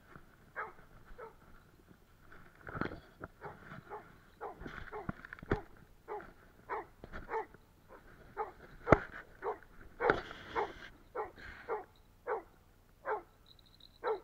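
Labrador retriever barking over and over in short, falling barks, about one or two a second. This is a search dog's bark alert at a person it has found hidden in the snow.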